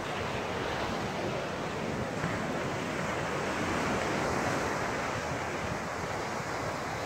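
Ocean surf washing onto a sandy beach, a steady rushing, with wind buffeting the microphone.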